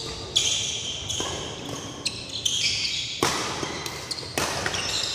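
Badminton rally: sharp cracks of rackets striking the shuttlecock, about one hit a second, with shoes squeaking on the court floor between the shots.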